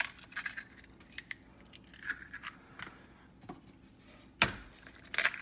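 Eggs tapped and cracked against the rim of a stainless steel mixing bowl: a string of sharp taps, the loudest about four and a half seconds in and again near the end.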